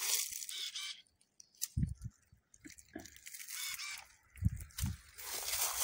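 Cordless electric pruning shears (Palmera) cutting through fruit-tree branches: several short crunching snips, with a couple of dull thumps from the branches and the tool.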